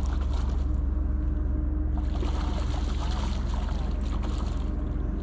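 Boat motor running steadily, a constant low hum, with a stretch of hiss from wind or water in the middle.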